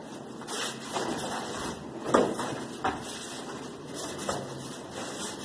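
Feet stepping and shuffling on a padded dojo mat with rustling of cotton uniforms, with a few soft thumps, the loudest about two seconds in.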